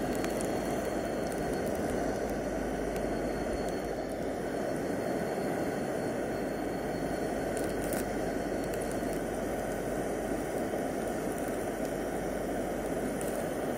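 Iwatani portable gas burner running steadily under grilling beef, a constant low hissing rush of flame with a few faint crackles of cooking fat.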